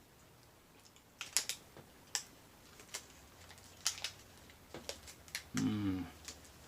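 Scattered sharp clicks and crinkles of a protein bar's plastic wrapper being handled and opened, a few at a time, then a short hum of a voice near the end.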